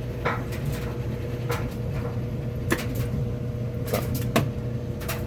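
Kenmore washing machine running: a steady low hum with a faint steady whine above it, and scattered short clicks and knocks.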